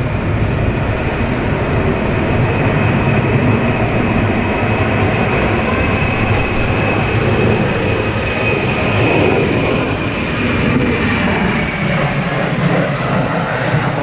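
Boeing 737-800's twin CFM56 turbofans at go-around thrust as the airliner climbs low overhead: a loud, steady jet roar with a high whine on top that sinks away near the end as it passes. Gusty typhoon wind buffets the microphone underneath.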